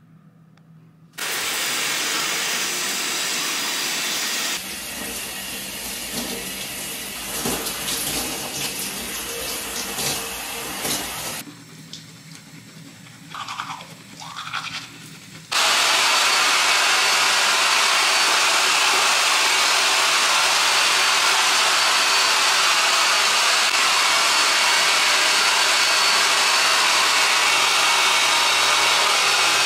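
A string of bathroom sounds: rushing water for the first ten seconds or so, then toothbrushing scrubs, then a hair dryer blowing steadily from about halfway through, the loudest and longest sound.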